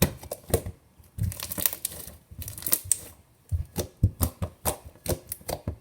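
Fluffy slime being squeezed and worked by hand, giving a run of irregular sharp clicks and pops as trapped air bubbles burst.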